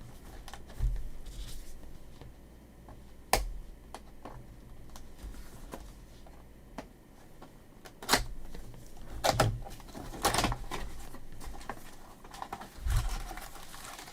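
A cardboard mega box of trading cards being opened and its packs handled: scattered sharp clicks and short bursts of rustling, with the loudest clicks about three seconds in and about eight seconds in.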